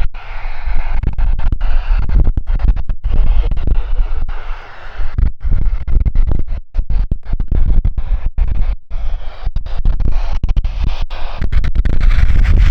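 Cessna 172N's four-cylinder piston engine running at high power, buried under heavy wind rumble and crackling on the microphone, with the sound cutting out briefly many times.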